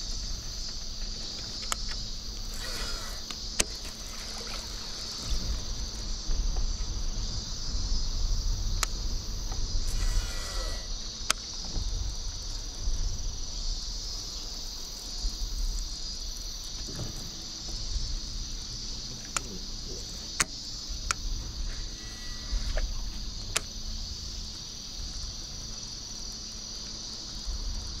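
Insects calling steadily from the shoreline vegetation, a continuous high-pitched chorus, with a low rumble underneath and a few sharp clicks scattered through.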